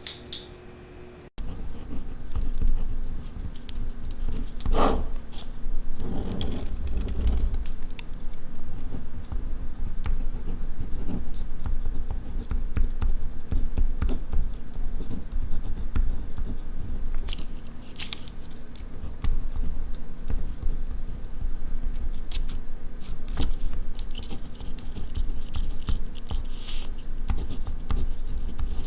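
Ballpoint pen writing on paper, recorded close up. Continuous scratching strokes with small ticks start abruptly about a second in.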